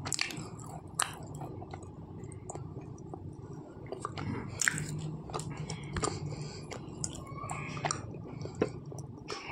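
Red slate pencil being chewed with the mouth closed: scattered crunches and crackles with soft squishy chewing, over a low steady hum.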